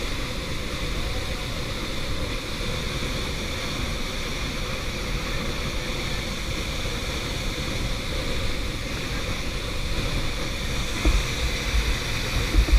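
Steady rush of a waterfall's falling water, with a few short low thumps near the end.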